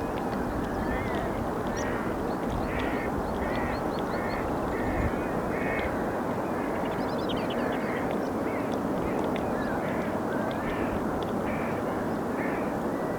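Shorebirds calling repeatedly, short similar-pitched calls at about one to two a second throughout, over a steady rushing background.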